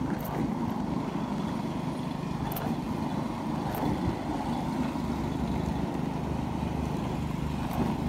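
Plastic cruiser skateboard's wheels rolling over asphalt: a steady low rumble.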